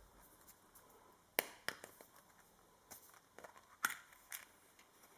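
A few light, sharp clicks and taps, spaced irregularly about half a second to a second apart, from hands handling small plastic toy pieces or packaging.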